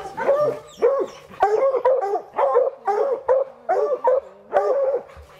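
Bluetick coonhounds barking at the base of a tree, about two barks a second: the tree bark that tells the hunter a raccoon is treed.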